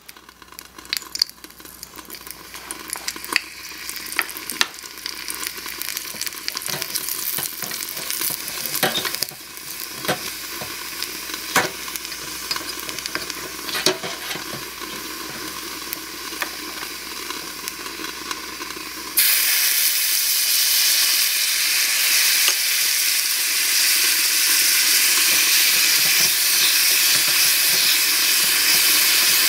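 Sliced onion sizzling in hot oil in a tiny stainless-steel saucepan, stirred with a wooden spatula that knocks and scrapes against the pan. About two-thirds through, with sliced mushrooms in the pan, the sizzle suddenly becomes much louder and steadier.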